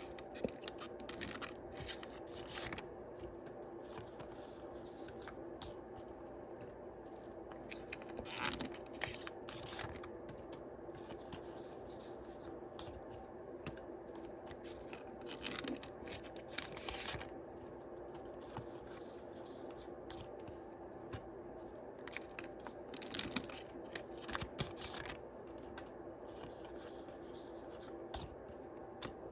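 Yu-Gi-Oh! booster packs being torn open and the paper trading cards handled: intermittent bursts of tearing, rustling and card-sliding over a steady low hum.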